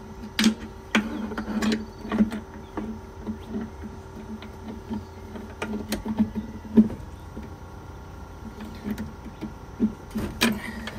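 Channel-lock pliers clicking and scraping on a tight gas-pipe union as it is worked loose: irregular metal clicks, with one sharper knock a little past the middle, over a steady low hum.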